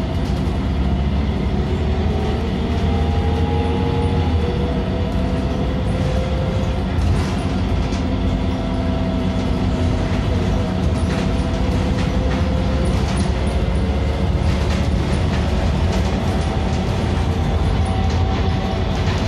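Inside an Irisbus Cityclass CNG city bus under way: steady low engine and road rumble with a whine that rises and falls in pitch, and scattered rattles from the body and fittings.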